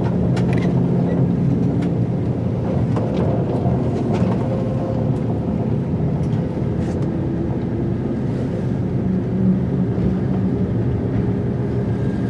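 Diesel engine of a narrow-gauge train running steadily as it rolls slowly along the track, with a few light clicks and knocks from the running gear.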